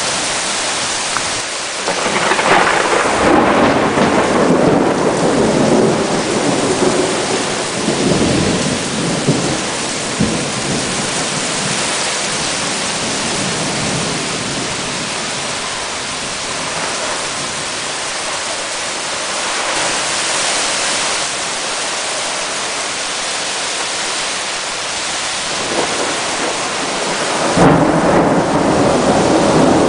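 Heavy rain pouring steadily in a thunderstorm. Thunder rumbles from about two seconds in for several seconds, and a louder rumble starts suddenly near the end.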